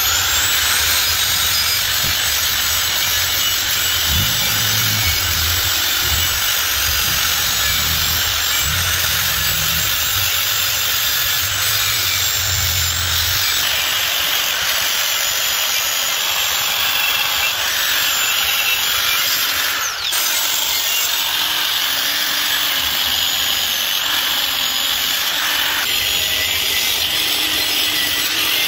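Angle grinder with a wire cup brush running continuously against a steel motorcycle exhaust muffler, scrubbing off heavy rust. Its high motor whine wavers slightly under the work, with a brief dip in level about twenty seconds in.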